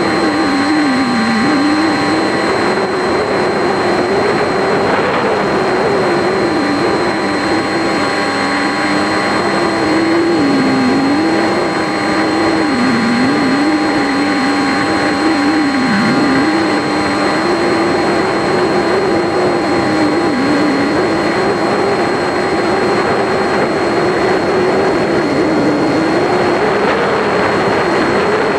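RC plane's motor and propeller running in flight, heard from on board: a steady drone that wavers up and down in pitch as the throttle changes, over constant wind rush and a thin steady high whine.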